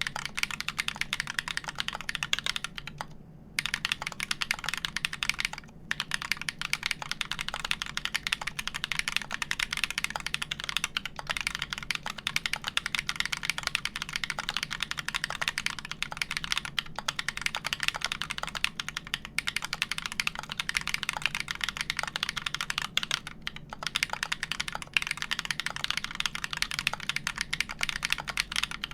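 Steady, fast typing on a custom mechanical keyboard: lubed Everglide Dark Jade Black linear switches on a wood plate with GMK keycaps, a rapid run of key clacks broken by a few short pauses.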